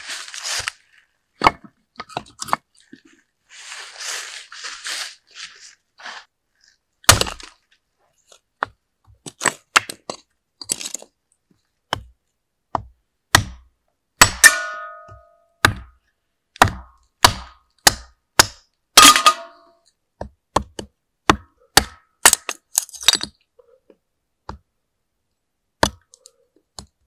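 Hatchet splitting small sticks of kindling: a series of separate sharp cracks and knocks as the blade strikes and splits the wood, a couple of them with a brief ringing clatter. A soft rustle comes about four seconds in.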